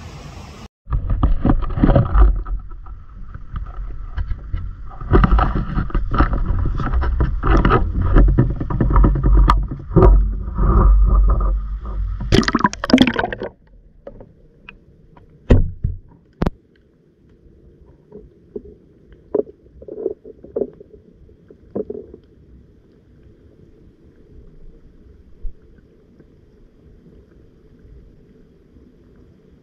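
Water sloshing and knocking around a submerged camera, a loud rough rumble full of clicks. About fourteen seconds in it drops to a low, muffled underwater hush with scattered clicks.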